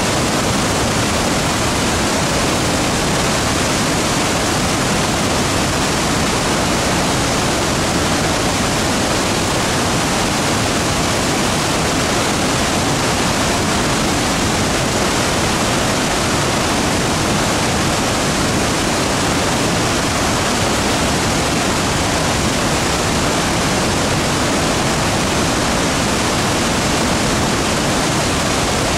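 Victoria Falls: a massive curtain of water plunging over the gorge wall, heard as a loud, steady, unbroken rush of falling water.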